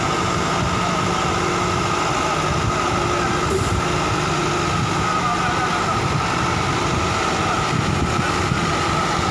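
Diesel engine of a Case single-drum road roller running steadily as the roller moves, with a steady high whine over the engine.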